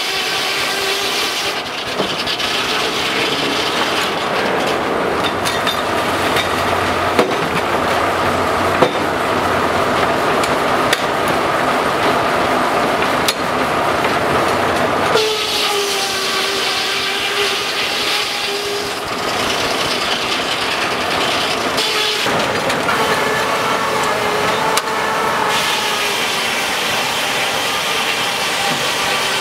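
Steam-powered sawmill running: a steady whine of several tones from the saw, over the clatter of the machinery. The whine drops a little in pitch about halfway through, as the blade comes under load, and a few sharp knocks stand out.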